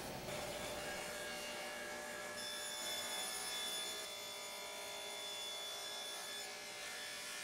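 Table saw running with a steady whine while a crosscut sled carries a quartersawn white oak panel through the blade to cut it to length.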